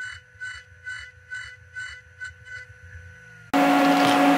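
CNC mill cutting slots with a long 1/8-inch flat end mill under flood coolant, chattering in even pulses about two a second: the chatter of an end mill that sticks out too far. About three and a half seconds in it gives way abruptly to a louder, steady machine hum with a low tone.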